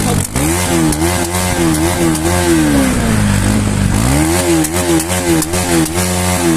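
Motorcycle engine revved in quick repeated throttle blips, its pitch rising and falling about three times a second; about three seconds in it drops to a lower note for a moment before the rapid blipping picks up again.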